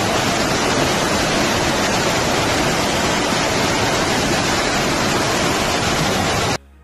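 Floodwater rushing across pavement and pouring over a wall edge in a torrent: a loud, steady rushing noise that cuts off abruptly near the end.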